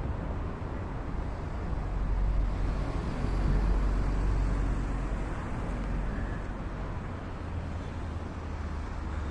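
Steady low rumbling outdoor background noise, swelling in level a few seconds in and easing off again.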